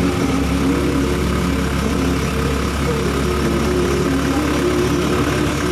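Honda Supra Fit's small four-stroke engine running steadily while the motorcycle is ridden, over a constant low road and wind rumble.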